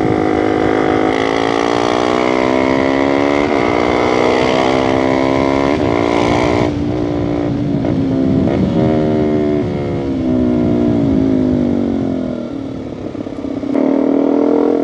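KTM RC250's single-cylinder engine running under load on the move, its pitch climbing and dropping repeatedly as it accelerates and changes gear, easing off briefly near the end. Wind rushes over the microphone underneath.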